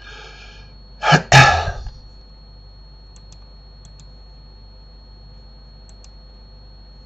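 A man coughing twice in quick succession, close to the microphone, about a second in. A few faint computer mouse clicks follow.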